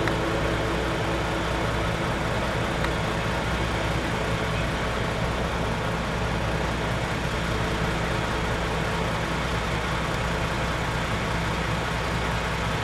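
An engine running steadily at an even level, with a low hum and no rise or fall.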